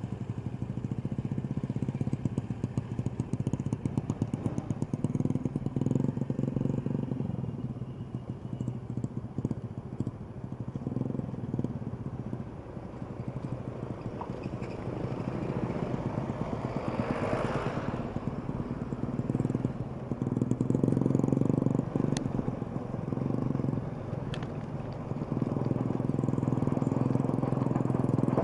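Motorcycle and vehicle engines in slow passing traffic, swelling and fading as they go by, with one louder pass about two-thirds of the way in and a couple of sharp clicks.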